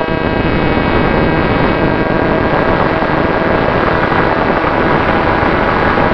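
Motor and propeller of an FPV model aircraft running steadily in flight, heard from its onboard camera. A faint steady whine sits under loud rushing air and propeller noise.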